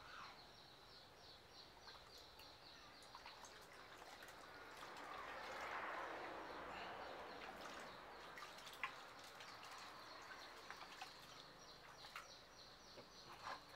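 Faint sloshing and dripping of water in a plastic basin as a baby monkey is washed by hand, swelling a little in the middle, with a few small splashes. A steady run of high chirping goes on behind it.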